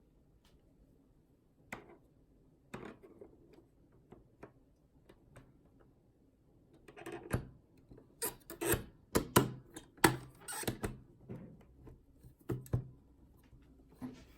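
A series of sharp clicks and knocks of things being handled, a few scattered at first, then a quick, louder cluster about halfway through.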